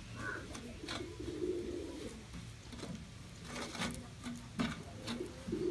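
A dove cooing in low notes a couple of times, over the scrape and clink of a metal spoon mixing spice paste on a steel plate.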